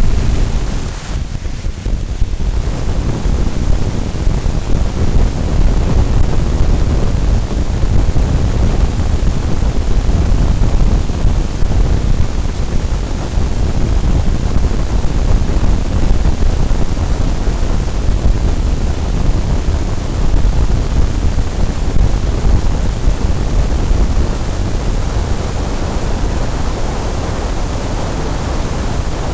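Road and wind noise of a car driving at highway speed: a loud, steady rush heaviest in the low end, fluttering slightly in level.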